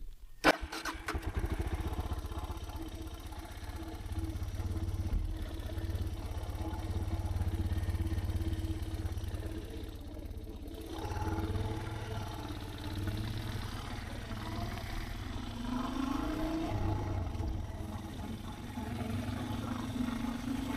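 Suzuki DR650's single-cylinder four-stroke engine riding along a dirt road, after a sharp knock just at the start. The engine eases off about ten seconds in, and the revs rise twice near the end as it picks up speed.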